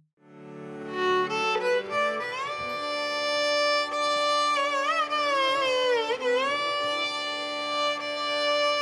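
Background music: a solo violin playing a slow melody over held low notes, with sliding, wavering ornaments in the middle of the phrase.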